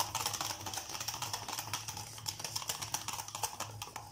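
Wire whisk beating a mashed banana and egg batter in a stainless steel bowl: a fast, irregular clicking of the metal tines against the bowl.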